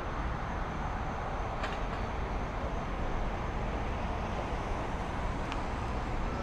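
Steady road traffic noise from passing cars, with a couple of faint clicks.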